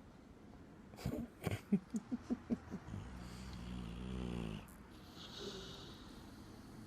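A sleeping dog snoring: a quick run of about seven short snorts, then one long drawn-out snore.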